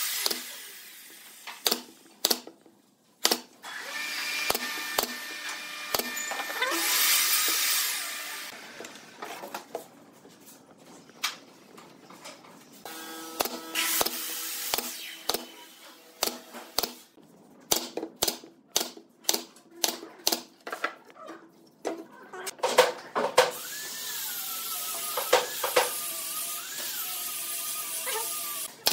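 Pneumatic brad nailer firing nails into a wooden frame: sharp single shots at irregular intervals, with several stretches of steady hiss a second or more long in between.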